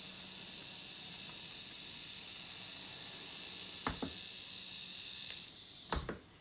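Steady hiss with faint high tones, broken by two pairs of short knocks about four and six seconds in; the hiss cuts off just after the second pair.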